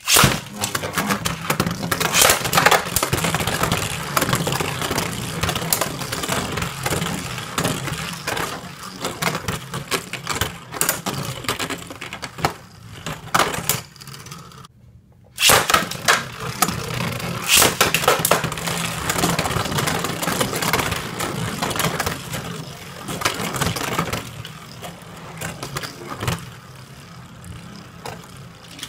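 Two Beyblade Burst spinning tops, Gaianon G4 and Kerbeus K4 in Slingshock mode, spinning and clashing in a plastic Slingshock stadium, a dense rattling clatter. It stops briefly about halfway through, then a fresh launch starts a second battle suddenly, which grows quieter near the end as the tops slow.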